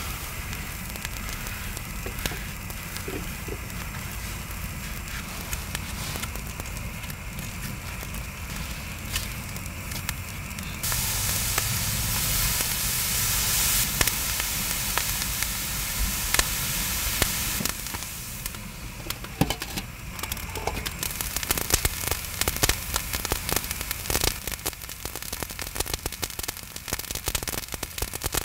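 Coarse salt and whole prawns heating on a cast-iron cauldron lid, crackling with rapid sharp pops that grow dense over the last ten seconds. Before that comes a louder steady hiss lasting about seven seconds, and at the start the salt rustles lightly as a hand spreads it.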